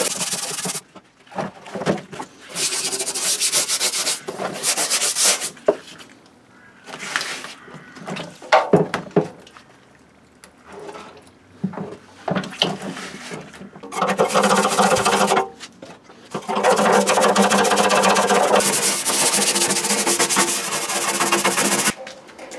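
Scrubbing a corroded, perforated sheet-metal plate with a pad, wet, in bursts of rough rubbing with short pauses and a few knocks between them, then a longer steady stretch of scrubbing in the second half.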